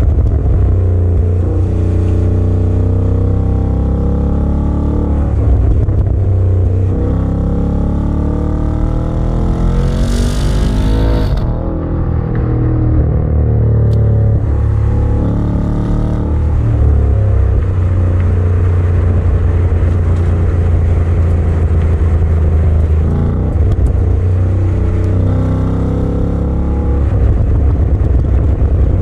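Ford Mustang's 5.0-litre V8 heard from inside the cabin, pulling through the gears on the 10-speed automatic, its note climbing and dropping back several times. A short hiss comes in about ten seconds in.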